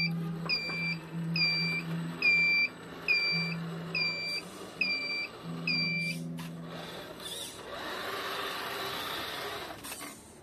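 RC Iveco Trakker 6x4 scale tipper truck beeping steadily, about one beep every three-quarters of a second, over a low hum: a reversing-alarm style warning from the model's sound unit. The beeping stops about six seconds in, and the rougher running noise of the truck's drive and tyres on the stone pavers rises as it drives off.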